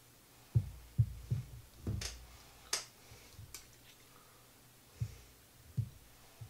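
A knife and a glass mustard jar knocking as mustard is scooped out and spread onto canapés on a plate: several dull knocks and a few sharp clicks in between.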